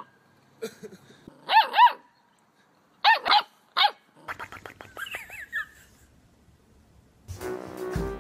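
A puppy barking in short, high yaps, in quick pairs, then a single yap, followed by a run of light clicks and a faint whine. Music comes in near the end.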